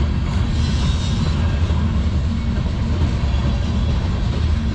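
Freight cars of a passing CN manifest train rolling by: a steady rumble of steel wheels on the rails.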